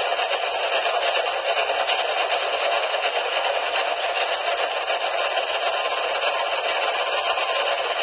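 Radio static: a steady, crackly hiss from a receiver with no clear signal.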